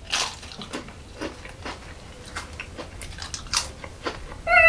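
A thin, crisp potato cracker being bitten into and chewed, with irregular dry crunches. A brief voiced sound comes near the end.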